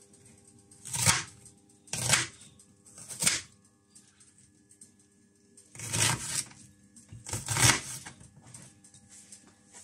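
Kitchen knife chopping a red onion on a wooden cutting board: about five separate chops, unevenly spaced with a pause of a couple of seconds in the middle.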